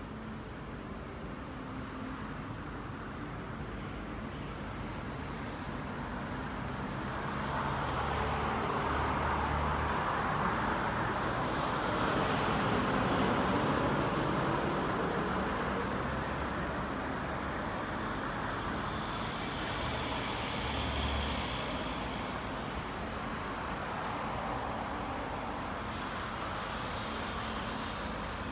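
Steady outdoor rushing noise that swells loud twice, for several seconds each time, before easing back. Short high chirps repeat every second or two above it.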